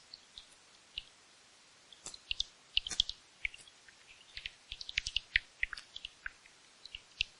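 Bats giving short, high squeaking chirps and clicks in irregular clusters, busiest through the middle of the stretch.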